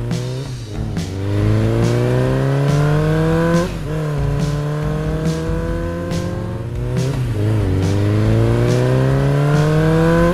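Dirt bike engine sound effect accelerating hard: the pitch climbs steadily, then drops back at each gear change, three times about every three seconds.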